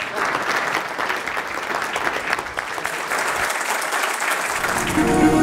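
Audience applauding. Music comes in near the end.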